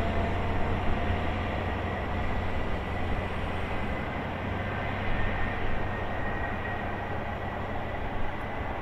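Diesel engine of an HST Class 43 power car running as the train moves along the line, a steady low drone with a faint high whine above it.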